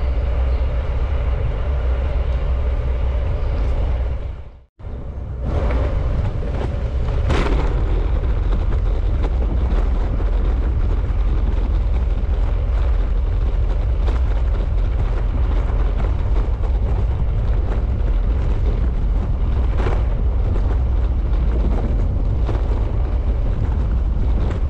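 Wind rumbling over a bike-mounted GoPro's microphone, with tyre and road noise, as the bicycle rides along a paved trail. The sound cuts out briefly about five seconds in, then carries on steadily.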